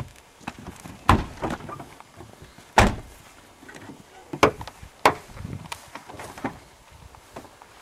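Car doors being handled and slammed shut: a series of sharp knocks and thuds, the loudest about three seconds in.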